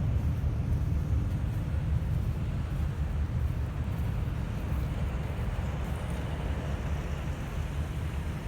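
Oil drilling rig's engines and machinery running with a steady low rumble.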